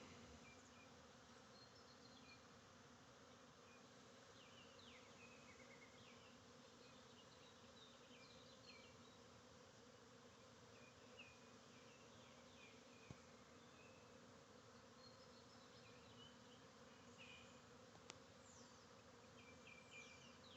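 Faint, steady hum of a crowd of honeybees flying at the hive, the colony coming out after two days of rain kept it inside.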